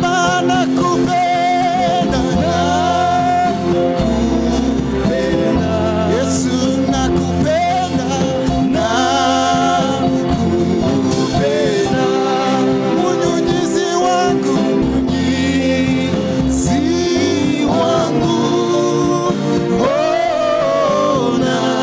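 Live gospel worship song: singers with voices gliding between held notes over band accompaniment with a drum kit, cymbal crashes standing out now and then.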